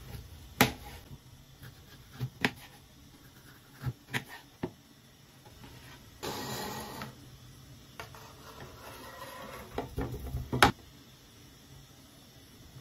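Kitchen knife knocking against a hard white cutting board as it cuts through cooked meat pieces: a handful of sharp single knocks. About six seconds in there is a short scraping rush, and near the end a quick cluster of knocks, the last the loudest, as the pieces are put into a ceramic bowl.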